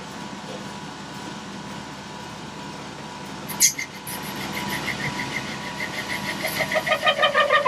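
1941 South Bend 13-inch metal lathe running with a steady hum. A sharp click comes a little past halfway, then a pitched squeal pulsing about five times a second that grows louder toward the end.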